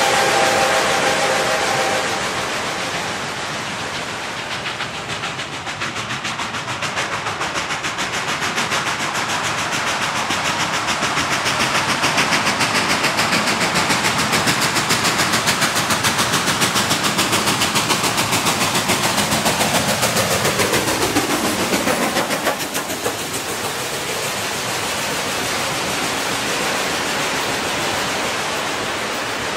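Reading T-1 4-8-4 steam locomotive. A steam-whistle chord sounds and fades in the first couple of seconds. Then the stack exhaust beats come fast and grow louder as the engine approaches, dropping in pitch as it passes about two-thirds of the way in, leaving a steady hiss and rumble of the passenger cars rolling by.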